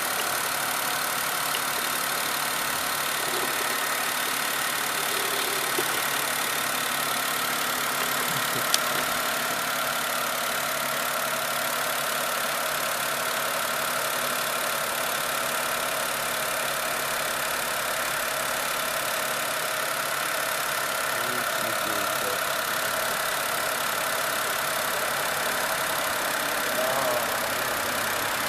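2004 Honda Life's small three-cylinder kei-car engine idling steadily while the alternator's charging output is tested. A single sharp click about nine seconds in.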